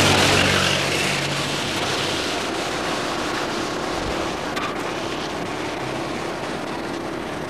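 A motor vehicle's engine passing close and fading away over the first couple of seconds, over a steady rushing noise of wind on the microphone.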